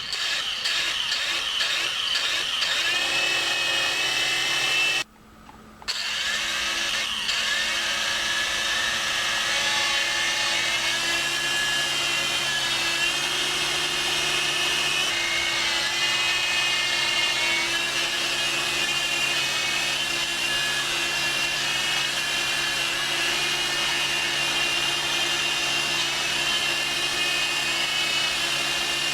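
Small electric motors of a miniature infrared remote-control toy helicopter whirring as the rotors spin, the pitch stepping up and down several times with the throttle. The motor cuts out for about a second around five seconds in, then runs again.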